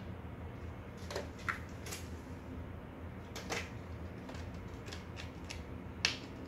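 A kitten's claws and paws tapping and scrabbling on a shrink-wrapped pack of aluminium drink cans as it climbs on top, a string of light clicks and taps, the sharpest one near the end. A steady low hum lies underneath.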